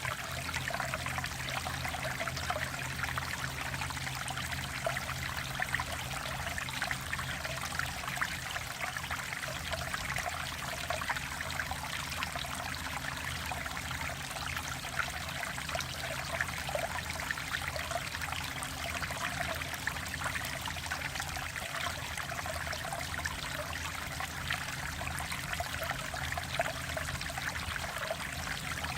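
Mountain valley stream flowing steadily over rocks, a continuous babbling and trickling rush of water.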